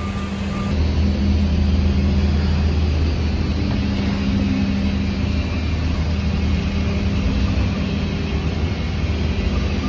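Running machinery with a steady, loud, low droning hum, getting a little louder about a second in.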